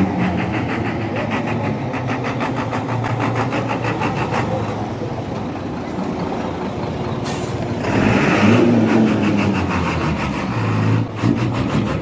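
Hino AK1J bus's diesel engine running close by with a fast, even clatter over a steady low hum. About eight seconds in it gets louder in a brief surge whose pitch rises and then falls.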